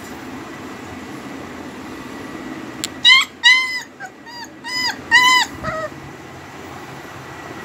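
German Shepherd puppy yelping: about three seconds in, a quick run of five or six short, high-pitched whimpering yelps over roughly two and a half seconds, the last one faint, over a steady low background hum.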